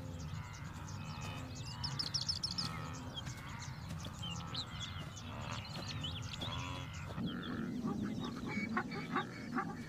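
Grassland ambience: many short bird chirps and whistles, with low honking grunts from a wildebeest herd, more of them in the second half.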